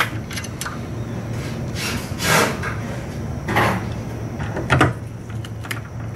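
Hand-handling of tools and screws: scattered light clicks and taps, with three short scraping swishes in the middle, over a steady low hum.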